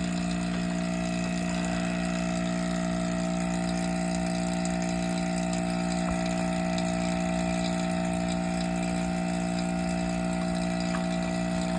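Vacuum pump running steadily, a constant machine hum that does not change.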